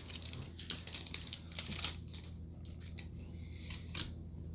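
Foil booster-pack wrapper crinkling and tearing as a pack of Pokémon cards is opened, with sharp crackles in the first two seconds, then quieter rustling of the pack and cards.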